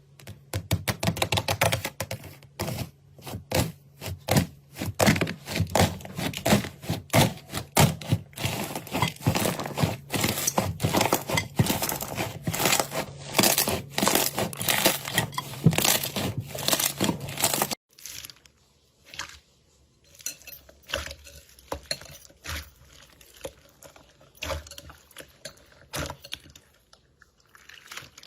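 Slime being squeezed and stretched, making dense crackling and popping clicks. About 18 seconds in, it cuts to a quieter, sparser crackling.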